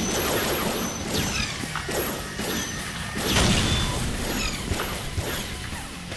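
Cartoon sound effects of laser-gun fire: a string of zaps falling in pitch, with a loud crash of an explosion about three and a half seconds in.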